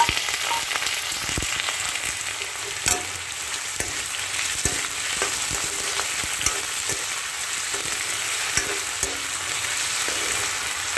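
Diced raw potatoes sizzling in hot oil in a kadhai, freshly added. A spatula stirs them, scraping and knocking against the pan every second or two.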